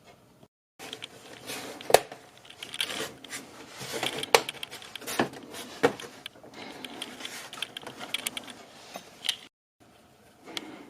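Irregular clicks, taps and rustling of small hard objects being handled. The sound cuts out briefly about half a second in and again near the end.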